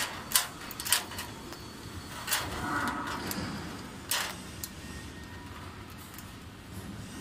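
Screwdriver working a small screw out of a vending machine's spiral-motor mount: several sharp, irregular clicks with some light scraping.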